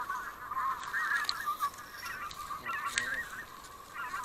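Greater white-fronted geese calling: a continuous chatter of high yelping calls, with a sharp click about three seconds in.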